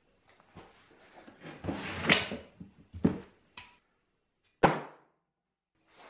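Things being handled and set down on a wooden workbench: about a second of scuffing and scraping, then a few knocks, the sharpest one a little after the middle.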